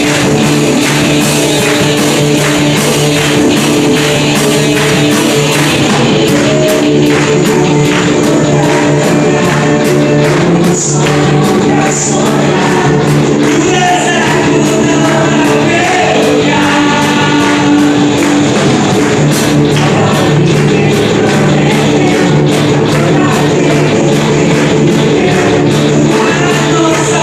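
Christian praise band performing an upbeat song: singers over a steady drum beat and band accompaniment.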